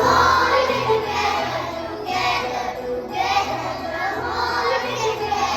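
Children singing a song together over instrumental backing music.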